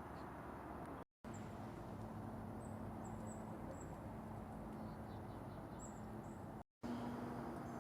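Outdoor ambience with a steady low rumble and a series of short, high bird chirps through the middle. The sound cuts out completely twice, briefly, about a second in and near the end.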